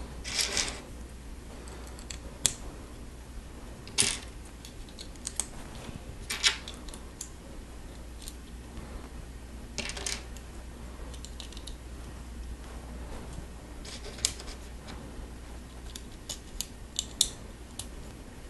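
Lego plastic bricks being handled and pressed together, giving irregular sharp little clicks and snaps, with a small cluster of them near the end.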